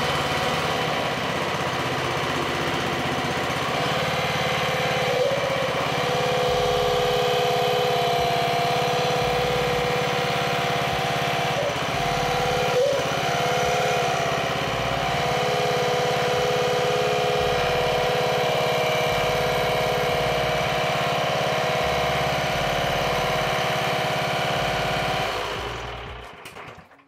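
Single-cylinder Kawasaki engine of a walk-behind mower running steadily on a test run after its tune-up, fading out near the end.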